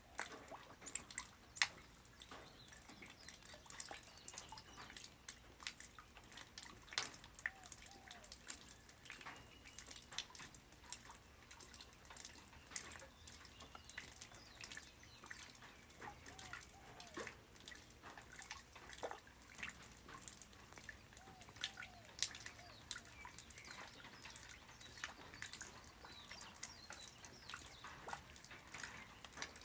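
Light rain falling on the ground: a dense, irregular patter of drops and drips, with now and then a short pitched plink.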